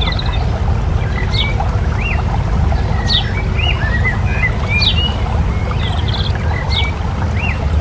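Small songbirds chirping and twittering, a short call about once a second, over a steady low rumble.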